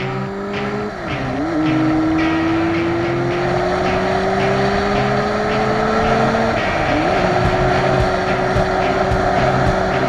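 Motorcycle engine pulling through the gears: a steady drone climbing slowly in pitch, dropping sharply at a gear change about a second in and again about seven seconds in. Wind noise runs with it.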